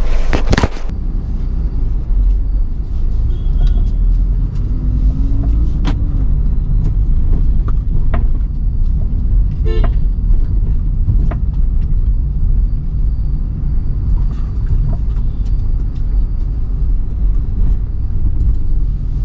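Car being driven, heard from inside the cabin: a steady low rumble of engine and road noise, with a few clicks and knocks. Two short horn toots come from traffic, about five seconds in and near ten seconds.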